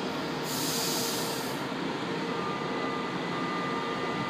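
São Paulo Metro Line 1 train standing at the platform: a short burst of compressed-air hiss about half a second in, over a steady rumble. About two seconds in, a steady high-pitched tone sets in and holds.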